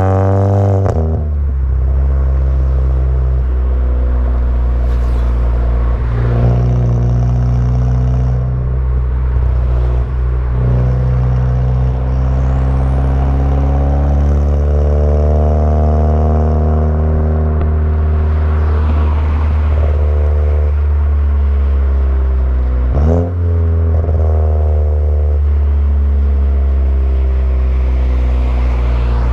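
Volkswagen Jetta GLI Mk6's turbocharged 2.0T four-cylinder, fitted with an aftermarket downpipe and cat-back exhaust, running with a low steady drone whose pitch slowly rises and falls. Late on, the sound briefly drops out sharply and then picks straight back up.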